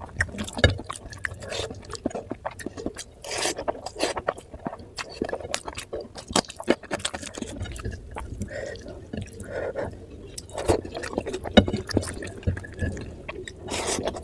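Close-up wet eating sounds: fingers squishing and mixing oily curry-soaked rice on a plate, with many short wet clicks and smacks of chewing.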